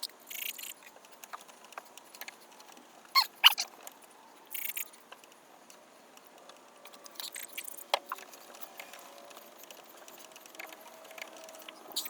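Light handling noises while a headlight lens is wet sanded by hand with a gray 3,000-grit sanding disc: scattered small clicks and scuffs, a few short hisses, and two sharp knocks about three seconds in.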